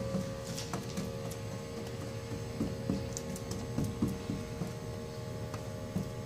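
Chip brush dabbing epoxy resin into fiberglass cloth on a fiberglass cowl: scattered soft taps and scrapes over a steady hum.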